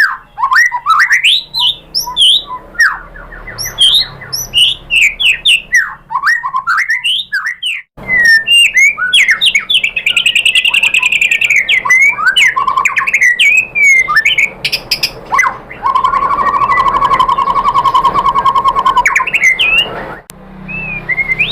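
White-rumped shama (murai batu) singing loudly: a fast, varied string of whistled notes sweeping up and down, with a long rapid trill near the end.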